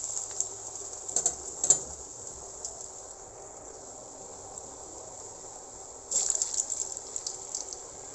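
Raw potato cubes frying in hot oil in a metal pan: a steady high sizzling hiss with crackling pops. The sizzle flares up at about a second and a half in and again around six seconds in.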